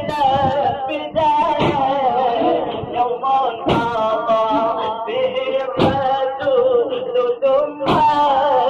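A devotional Arabic chant: a voice singing a drawn-out, wavering melody over a heavy beat that falls about every two seconds.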